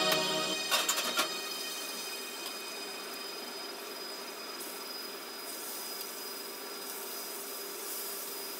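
Steady faint hum and hiss of a commercial kitchen, with a few light clicks about a second in.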